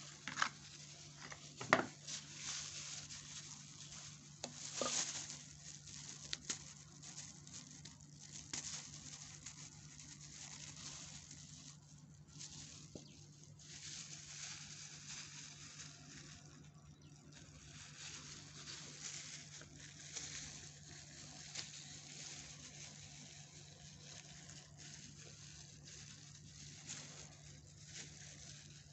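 Metal spoon stirring and scraping thick lotion cream in a ceramic bowl, with plastic gloves crinkling, a tube being squeezed, and occasional small clicks of the spoon on the bowl. A steady low hum runs underneath.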